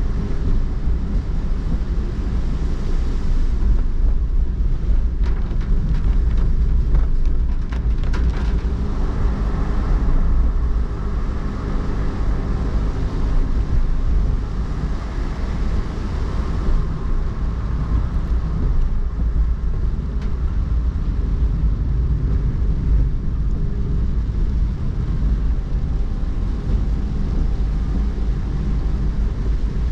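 A car driving slowly along rain-wet streets: a steady low rumble from the road and engine, with the hiss of tyres on wet asphalt. A few faint ticks come about five to eight seconds in.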